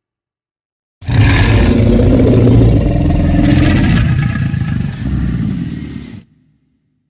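Jurassic Park Tyrannosaurus rex roar sound effect: one long, loud, deep roar of about five seconds, starting about a second in, wavering briefly near the end, then cutting off sharply.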